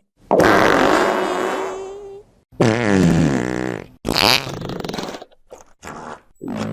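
A string of fart sound effects. Three separate farts of a second or two each come one after another with short gaps between them. Near the end comes a quick run of short sputtering puffs.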